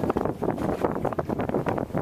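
Wind buffeting the microphone in uneven gusts, out on open water aboard a small drifting boat, with no engine heard.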